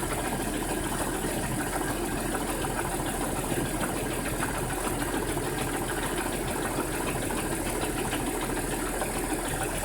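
Audi A6 2.8 AQD V6 engine running steadily with a fast, regular knocking tick through it: the engine knock the owner is recording.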